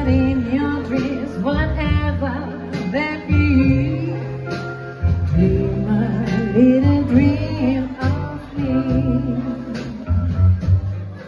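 A song: a voice singing a melody over guitar accompaniment and a steady bass line.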